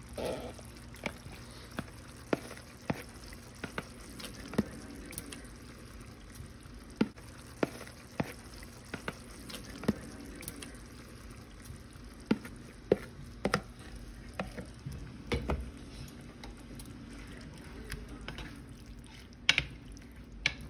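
Plastic spatula stirring a pan of vegetables simmering in coconut milk curry, with sharp clicks and taps against the pan now and then.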